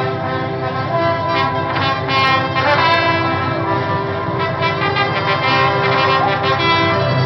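Orchestral music led by trumpets, with held brass notes over strings.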